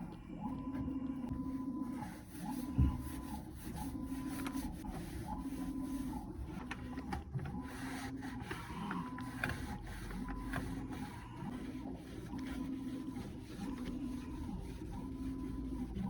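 Rhythmic cleaning work inside a furnace's blower compartment: a steady mechanical hum that swells and eases about once every second and a half, like back-and-forth scrubbing strokes, with a single knock about three seconds in.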